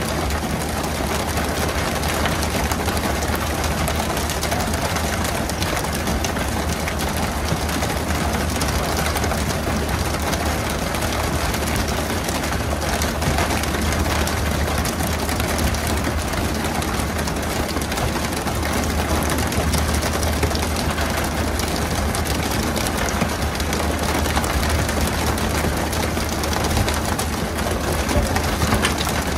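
A fishing boat's engine running with a steady low hum under a constant rush of spraying and splashing water.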